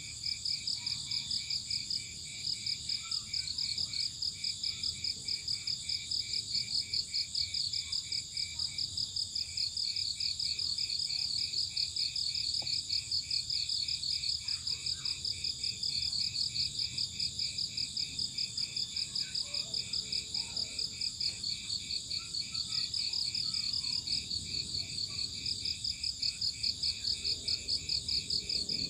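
Several crickets chirping together in steady, rhythmically pulsing trills at a few different pitches, over a faint low background hiss.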